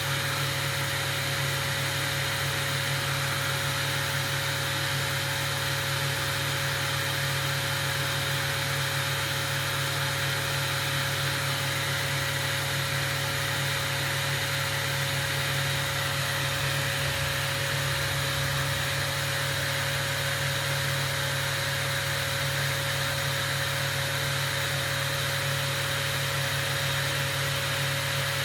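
Steady running of glassblowing workshop equipment: an even low hum with a constant mid-pitched tone over a broad hiss, unchanging throughout.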